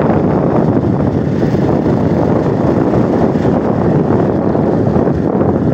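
Wind buffeting the microphone: a loud, steady rushing noise with no pitched tone in it.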